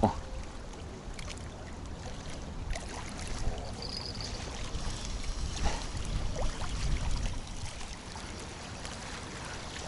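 Strong wind buffeting the microphone in a steady low rumble, with water lapping and a few faint knocks.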